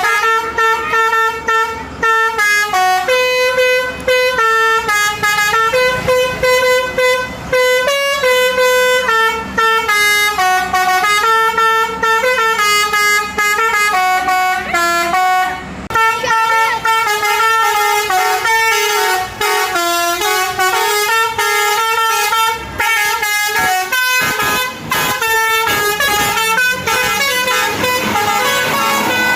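Telolet (basuri) multi-tone bus horn playing a melody, its notes stepping up and down several times a second with only a few short breaks.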